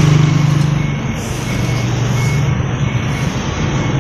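Road noise while cycling in traffic: a steady rush of wind on the microphone over the low drone of passing motor vehicles, loudest in the first second. Faint short high beeps repeat at an even pace, a little under one a second.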